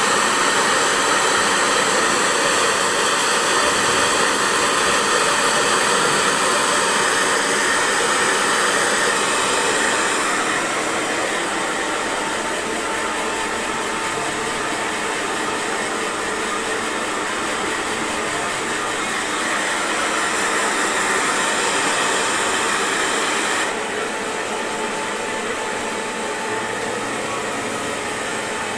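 Handheld hair dryer blowing steadily across a person's hair, a loud, even rushing. It drops slightly in level about ten seconds in and again a few seconds before the end.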